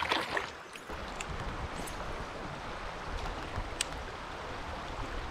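A brief splash as a released smallmouth bass kicks away beside the kayak, then the steady rush of shallow river water running over a riffle, with a low rumble underneath.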